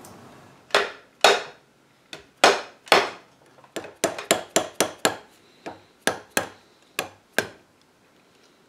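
Hammer blows knocking apart a glued, doweled joint of a wooden chair frame. About sixteen sharp wooden knocks: a few spaced strikes first, then a quicker run of taps from about halfway through.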